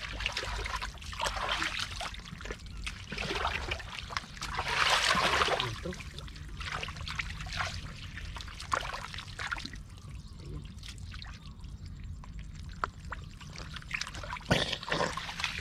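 Canal water splashing, trickling and pouring in irregular bursts, with a louder rush of pouring water about five seconds in. A faint low steady hum runs underneath.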